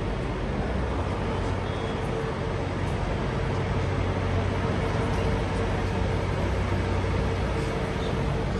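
City street traffic noise with a steady engine hum.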